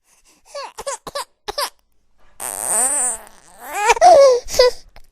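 Baby crying: four short sobbing cries, then two longer wailing cries, the loudest about four seconds in.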